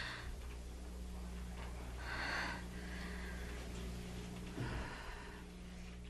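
A person breathing audibly, two slow breaths about two and a half seconds apart, over a low steady hum.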